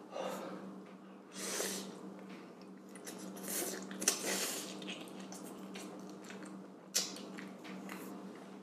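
A man slurping up a mouthful of spicy noodles and chewing, with several noisy slurps, then a sharp click about seven seconds in.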